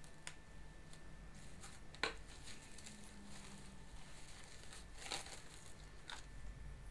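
Plastic cling film crinkling and rustling faintly as it is pulled from its roll and wrapped around a ball of dough, with a few sharp crackles.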